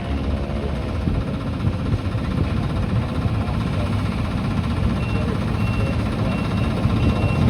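Demolition machinery working: a heavy diesel engine running with a dense low rumble and crackle. From about five seconds in a reversing alarm beeps steadily, roughly every half second or so.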